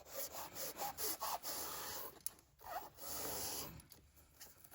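Faint rubbing and scraping of a hand tool on upholstery material in two stretches, the second short, with a few small squeaks.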